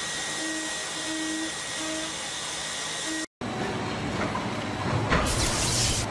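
CNC milling machine running with a steady mechanical hum, broken by a short dropout about halfway. A loud burst of hiss comes near the end.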